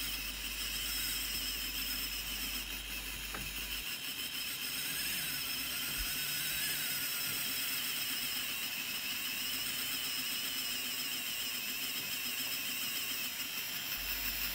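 The motor of an N gauge Gaugemaster Class 73 model locomotive running on a rolling road, giving a high, wavering whine. It is a rough-running motor, "just all over the place", still not smooth after being run in and before a decoder is fitted.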